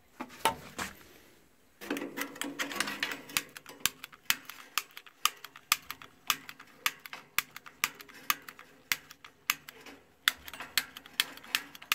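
Long-reach butane utility lighter clicked over and over, about two clicks a second, without catching to light the gas grill's burner: the lighter is failing.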